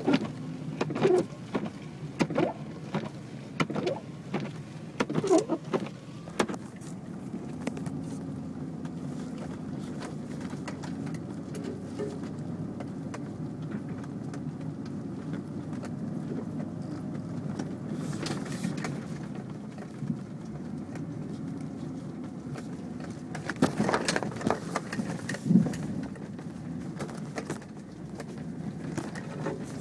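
Vehicle cabin noise while driving slowly over a snow-covered track: a steady low engine and road hum, with clusters of knocks and rattles in the first few seconds and again about two-thirds of the way through.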